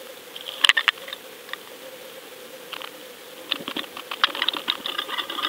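Underwater sound picked up by a camera on a fishing line: a few sharp clicks, then a thick run of clicks and rattles from about three and a half seconds in, over a steady faint hum.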